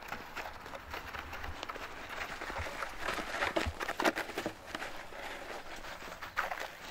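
Footsteps in wet, melting snow: a quick, irregular series of steps, with the loudest ones about four seconds in and again near the end.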